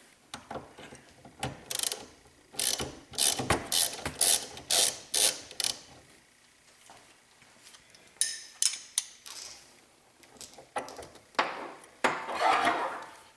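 Hand ratchet clicking in several runs of quick strokes, about two a second at its loudest, as the two screws holding the steering-wheel airbag module are backed out.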